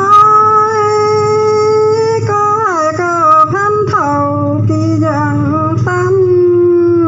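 A solo voice singing a traditional call-and-response folk song (hát đối đáp), holding long drawn-out notes and sliding between pitches. A low, steady background sits under the voice throughout.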